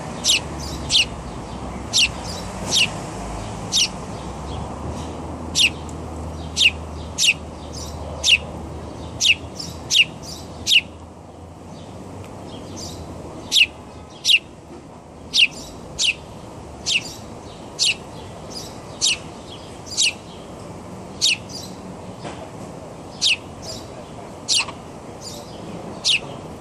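Small birds calling in a steady series of sharp, high chirps, each sweeping downward in pitch, about one a second with a short pause near the middle, over a steady low background rumble.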